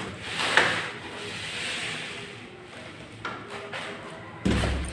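A door fitted with a keycard lock being moved: rubbing and rustling, a sharp click about half a second in, a lighter click later, and a dull thump near the end.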